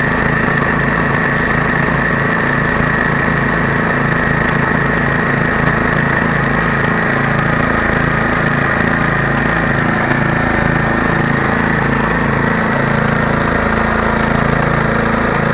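Small engine running steadily, driving a homemade rotary water-well drill rig as it drills, with a steady high-pitched whine over the engine note.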